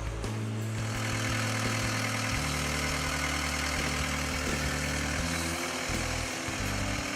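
The 1998 New Holland LX665 skid steer's diesel engine running steadily, coming in about a second in. A music bed with a stepping bass line plays underneath.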